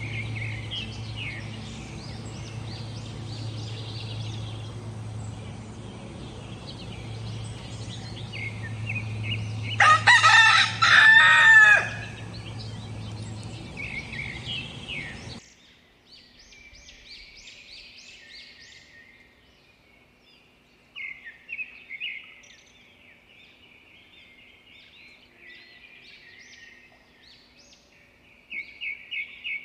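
A rooster crowing once, about ten seconds in, over small birds chirping and a low steady hum. About halfway through the sound cuts to quieter chirping of small birds, which grows louder in short runs near the end.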